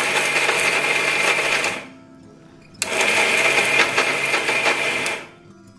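Singer Jiffy mixer grinder with a stainless steel jar, run in pulses to grind almonds, cashews, pistachios, melon seeds and sugar to a fine dry powder. It runs, stops about two seconds in, then runs again for about two seconds before stopping. It is pulsed so that the nuts do not release their oil.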